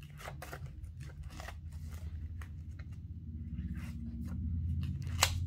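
Paper insert sheets of a ring-bound personal-size organiser being turned over by hand: a string of short rustles and flicks, with one sharper click near the end.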